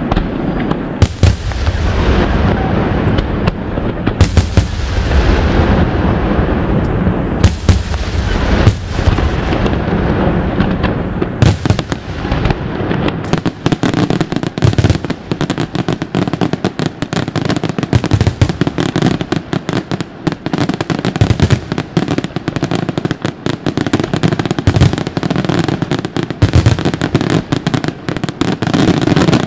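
Aerial firework shells bursting in quick succession. The bangs come faster and closer together from about halfway through, into a near-continuous barrage.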